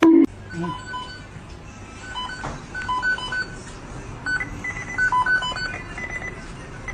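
Many short electronic beeps at several different pitches, sounding irregularly and sometimes overlapping, over a steady background noise. A short loud burst opens the sequence.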